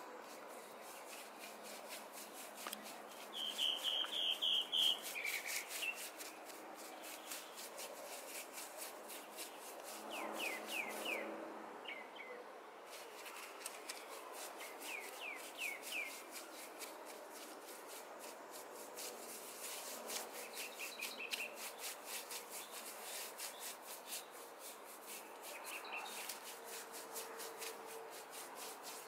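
A small hand tool rubbing and scraping over a cast cement baluster in quick repeated strokes. A bird chirps in short bursts several times; the loudest burst comes about four seconds in.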